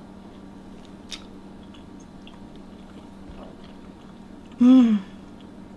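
A person chewing a mouthful of Salisbury steak and gravy, with faint soft mouth clicks, over a steady low hum. Near the end comes one short voiced "mm" that falls in pitch.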